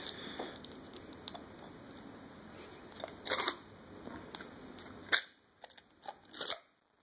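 Plastic coin tube of silver coins handled and worked open, with a few short scraping and clicking noises: one about three seconds in and a few more close together near the end.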